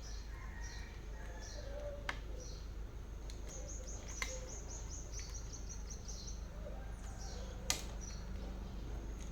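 Small birds chirping, with a quick run of chirps about halfway through, over a low steady hum. Three sharp clicks are spaced through it.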